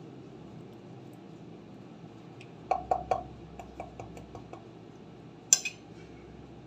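Metal fork tapping and scraping on a ceramic plate, a quick run of light clinks about two and a half seconds in, then one sharper clink about five and a half seconds in.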